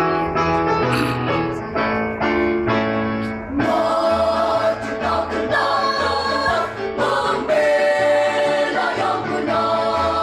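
Children's school choir singing in several voice parts at once, with held notes that change every second or so.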